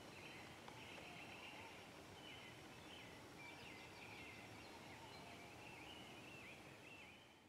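Near silence with a faint background of short, high chirping calls from birds or spring frogs, fading out near the end.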